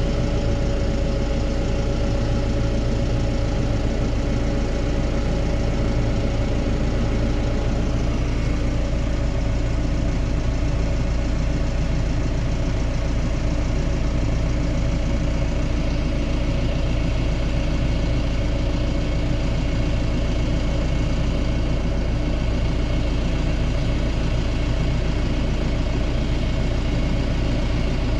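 Diesel engine of farm harvest machinery running steadily at a constant speed, with a deep hum and a steady whine that rises slightly at the start and then holds.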